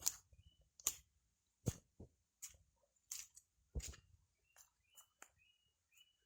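Footsteps through brush and leaf litter at a walking pace, a sharp crunch or thud roughly every three-quarters of a second, with faint short high chirps between them.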